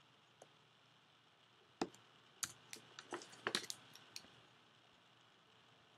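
Computer input clicks: one faint click, then a quick scatter of about ten sharp clicks between two and four seconds in, over faint background hiss.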